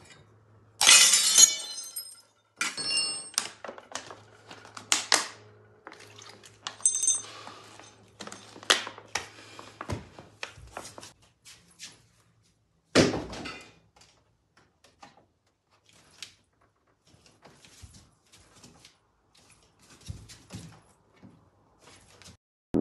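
A loud crash of shattering glass about a second in, then a long string of separate knocks, clinks and clatters of objects.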